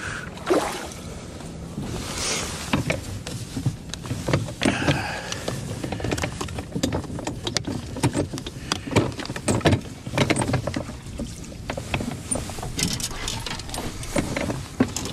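Irregular knocks, clunks and rattles of handling in a small boat, as a plastic boat seat is lifted and moved on its pedestal and feet shift on the hull, over a steady low rumble.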